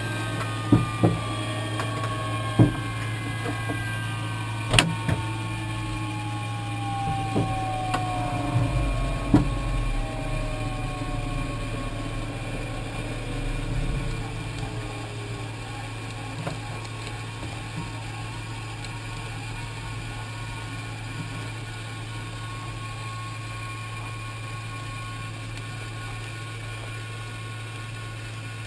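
Jet engine spooling down after shutdown: several whine tones fall steadily in pitch over about fifteen seconds, over a steady low hum. A few sharp clicks sound in the first ten seconds.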